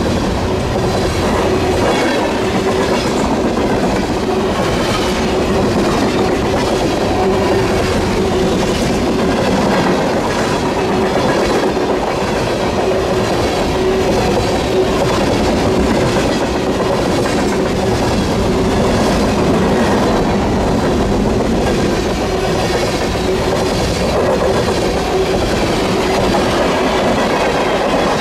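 Railroad cars rolling steadily past, their wheels clicking rhythmically over the rail joints.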